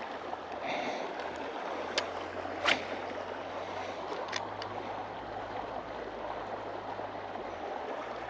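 Steady outdoor hiss of wind and water, broken by a few sharp clicks from a spinning reel being handled, about two, three and four seconds in; the click near three seconds is the loudest.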